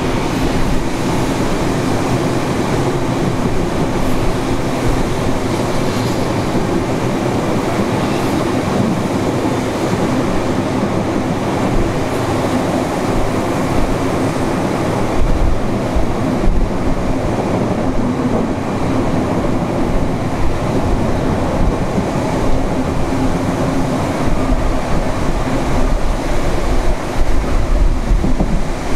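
Steady running noise of a steam-hauled train heard from on board: the carriage rumbles and rattles on the rails, with heavier low buffeting now and then in the second half.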